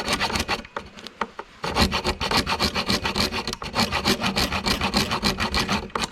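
Small handheld hacksaw cutting through a metal rivet on a snowmobile tunnel, in quick even strokes of about five or six a second. The sawing pauses for about a second near the start, then goes on steadily.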